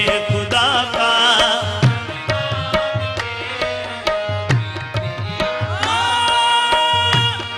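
Qawwali ensemble performing a naat: harmonium and tabla under winding sung vocal runs, with a long note held by voices and harmonium from about six seconds in.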